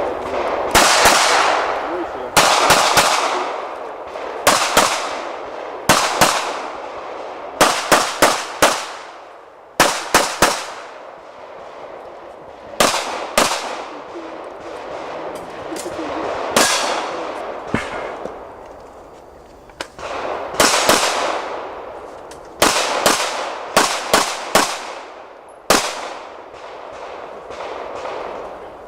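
Pistol shots fired in rapid pairs and short strings, with pauses of a second or more between groups. This is the rhythm of an IPSC course of fire: double taps on each target, with movement and reloads in between. Each shot rings out with an echoing tail.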